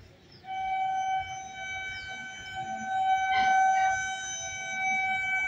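Electric MEMU train's horn sounding one long, steady blast as the train approaches the level crossing, starting about half a second in and growing louder.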